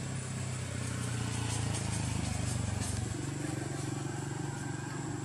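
A steady low engine hum that shifts in pitch about three seconds in, with a thin steady high whine above it.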